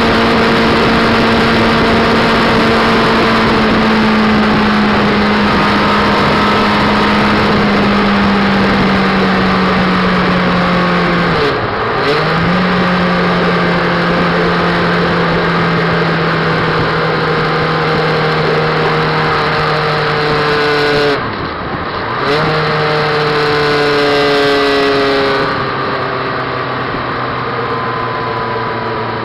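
Motorcycle engine and wind rush at motorway speed. The engine note slowly falls in pitch and dips briefly twice, about a third and two-thirds of the way through, as the throttle is eased, then picks up again a little lower.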